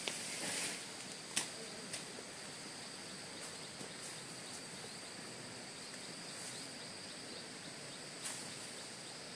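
Outdoor rural ambience: a steady high-pitched insect drone, broken by a few sharp clicks or knocks, one about a second in and one near the end.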